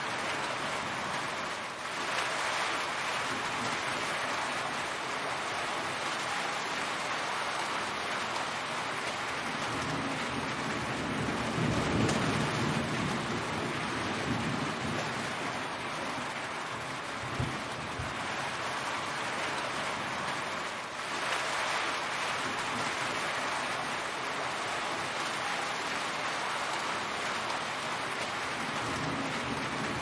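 Heavy rain pouring steadily, running and dripping off the edge of a roof. A deeper rumble swells up around the middle and again near the end.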